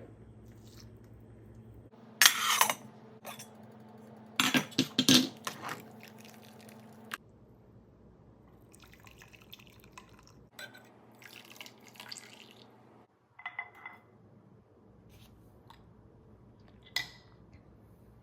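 Tea-making sounds in a kitchen: liquid pouring and dripping, and kitchenware clinking, in short separate bursts over a low hum. The loudest bursts come a couple of seconds in and again around the fifth second.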